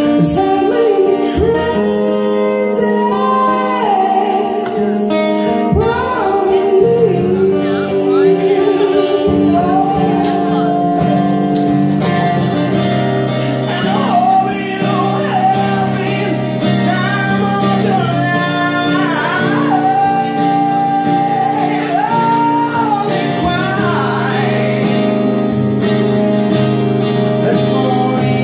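Live music: a man singing a song into a microphone over instrumental accompaniment.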